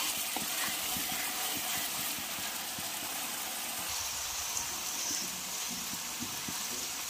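Ground masala paste sizzling and bubbling steadily in hot oil in a kadhai, at the stage where it is fried down until the oil separates.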